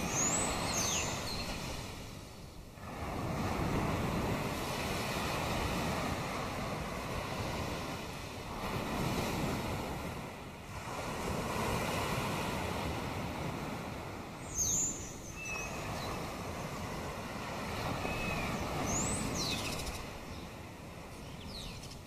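Sea waves washing ashore, the surf swelling and ebbing every few seconds. A few short, high-pitched bird calls sound over it near the start and twice in the last third.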